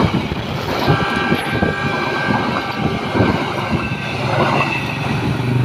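Train rolling past, its wheels clattering over the rail joints with a steady run of clicks.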